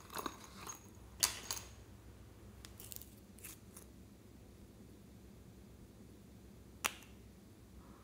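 Faint handling of small plastic and glass items, a flower-shaped plastic case and a nail polish bottle: a cluster of clicks and rattles in the first second and a half, a few lighter ticks around three seconds in, and one sharp click near seven seconds.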